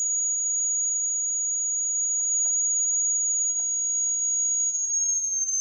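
Small speaker driven by an adjustable-frequency oscillator board, sounding a steady, very high-pitched tone. Near the end the pitch steps down slightly a few times as the frequency is lowered, and there are a few faint clicks.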